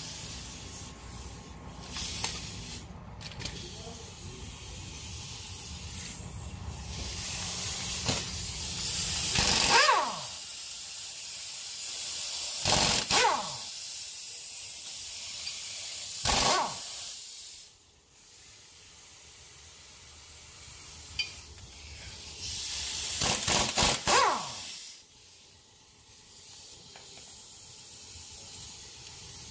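Pneumatic impact wrench taking the bolts out of a diesel engine's crankshaft pulley: several short, loud bursts of the tool hammering with its air exhaust hissing. The last burst is the longest, and the first and last wind down in pitch as the trigger is let go. Between the bursts there is a steady air hiss.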